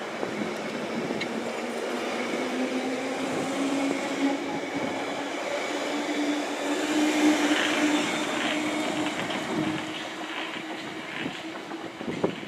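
London Underground 1972 Stock Bakerloo line train accelerating away from the platform: a traction-motor hum rising slowly in pitch over the rumble of wheels on rail, growing louder until about two-thirds of the way through, then fading as the train leaves.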